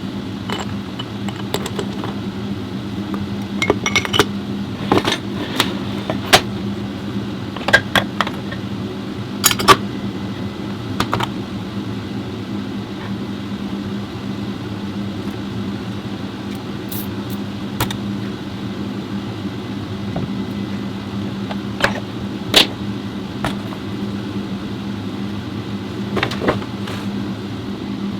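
A steady low hum with scattered sharp metallic clinks and knocks, thicker in the first dozen seconds and sparser after, as metal parts and tools are handled during an automatic transmission overhaul.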